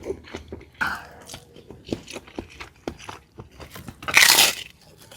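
Close-up eating sounds: a person biting and chewing crunchy food with many short crunching clicks, and one louder noisy burst about four seconds in.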